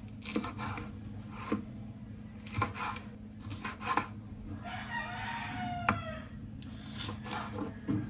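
A rooster crows once, about five seconds in, over scattered knocks and clatter of household work.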